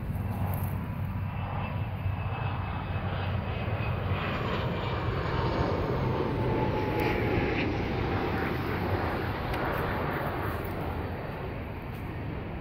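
Airplane flying overhead: a steady engine rumble that grows louder toward the middle and fades near the end, with a faint whine slowly falling in pitch as it passes.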